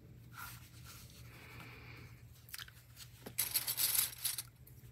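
Small plastic sewing clips being handled: a few light clicks, then, about three and a half seconds in, a louder rattling rustle lasting about a second as a hand rummages in a fabric bucket of clips.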